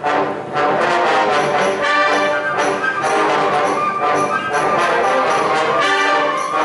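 A wind band playing loudly, brass to the fore, with sustained chords and several accented entries.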